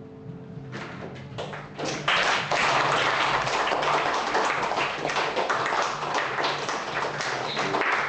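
A small audience clapping by hand, starting about a second in and filling out quickly, as the last guitar chord of the song dies away.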